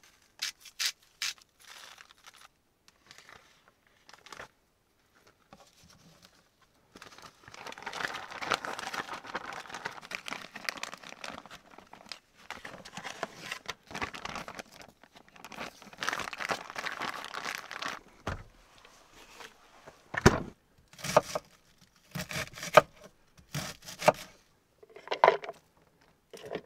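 Zip-top plastic bag crinkling and rustling as it is squeezed and worked to mix a fish marinade, after a few quick clicks of a spice jar being shaken into it. About two-thirds in there is a loud thud, then a run of separate knocks and clatter.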